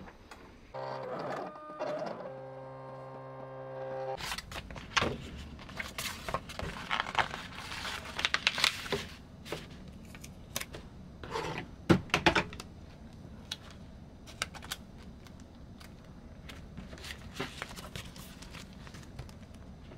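Paper rustling and crinkling as hands handle a sheet of printed labels, peel a round paper sticker off it and press it onto a kraft paper envelope, with scattered sharp clicks and taps. About a second in, a steady sound with several pitches comes in and stops about three seconds later.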